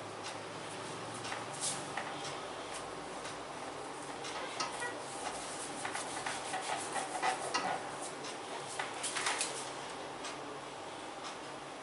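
Hands massaging a person's bare skin: rubbing strokes with scattered light slaps and clicks, busiest in the middle, over a steady low hiss.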